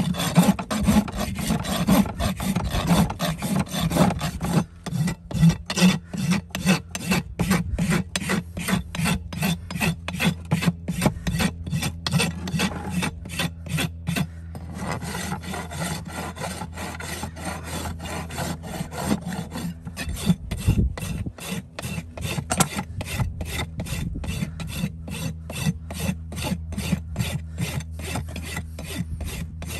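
Farrier's rasp filing a horse's hoof wall in steady back-and-forth strokes, about two to three a second, with a brief pause about fourteen seconds in.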